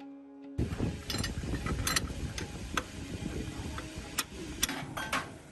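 Workshop sound of metal tools and parts being handled: scattered sharp metallic clicks and clinks over a rough background. Instrumental music fades out just before, cutting off about half a second in.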